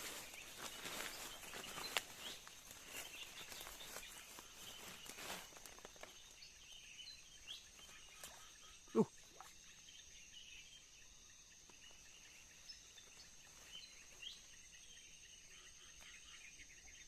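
Rustling and crunching of movement through undergrowth for the first six seconds, then a steady high insect drone with scattered bird chirps. One short, sharp sound about nine seconds in is the loudest thing heard.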